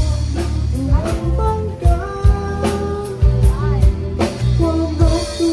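Background music: a song with a sung melody over drums and a bass line.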